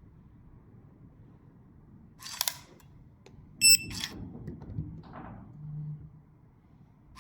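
An electronic hidden cabinet lock gives a short beep on reading a digital transit card. The beep comes a little after a clack and is followed by a brief low hum.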